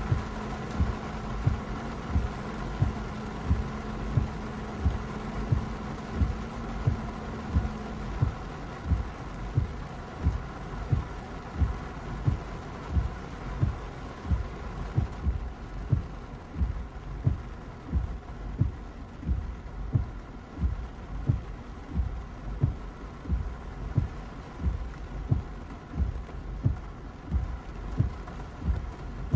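Car windshield wipers sweeping in the rain, a low thump at each stroke about every 0.7 seconds, over the steady hum of the car.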